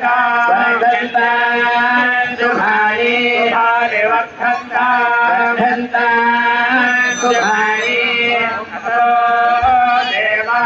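Temple chanting by male voices in long held, drawn-out notes over a steady drone, heard through a television's speaker.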